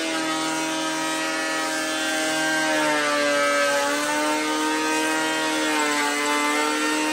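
Makita 312 electric beam planer running under load as it is pushed along a rough 8x8 timber, cutting a pass with a steady whine. The whine dips slightly in pitch twice.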